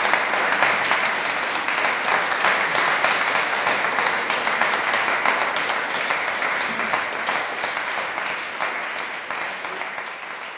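Audience applauding: dense clapping from many hands that gradually fades out toward the end.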